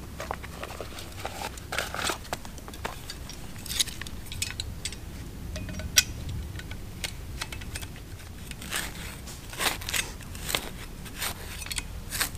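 Dry leaf litter being scraped and swept off the ground by hand: an irregular crackling rustle with scattered scrapes and clicks.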